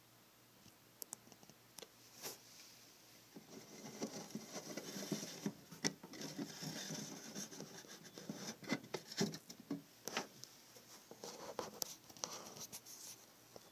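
Close handling noise: irregular scratching and rustling with many sharp little clicks and taps, heaviest in the middle stretch.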